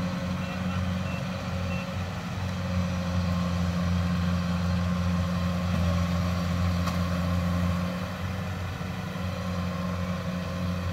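Diesel engine of a tracked rice combine harvester running steadily under load as it harvests through soft, muddy paddy ground. A few short high beeps sound in the first couple of seconds.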